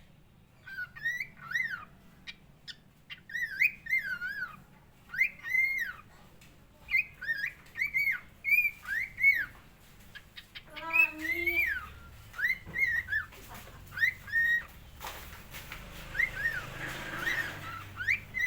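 Cockatiel whistling its song: a long run of short whistled notes, each rising and falling in pitch, with a lower, harsher call about eleven seconds in.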